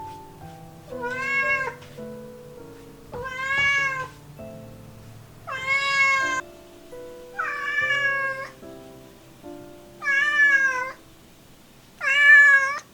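Young cat meowing six times, about two seconds apart, each call a drawn-out arching meow under a second long; the title presents this cat's voice as breaking. Background music plays underneath.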